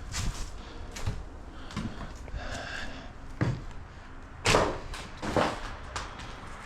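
A few scattered knocks and thuds, the loudest about four and a half seconds in.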